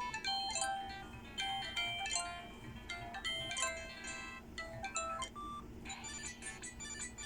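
Samsung E530 mobile phone playing a polyphonic ringtone through its small loudspeaker: a melody of short, bright synthesized notes. After a brief gap about five and a half seconds in, a different, denser tune begins.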